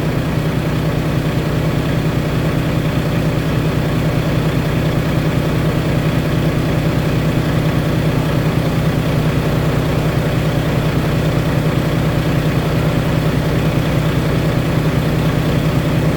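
Freshly reassembled Volvo D13 diesel truck engine idling steadily.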